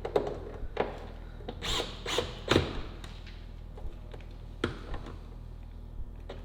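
Hand tools, screws and car interior parts being handled: a series of irregular sharp clicks and knocks, the loudest about two and a half seconds in, over a steady low hum.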